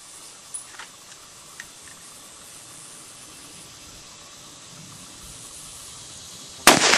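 Quiet outdoor hiss with a few faint clicks, then a single loud rifle shot near the end.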